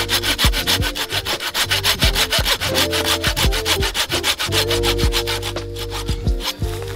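Folding pruning saw cutting through a fallen tree branch in quick, even strokes, over background music with held chords.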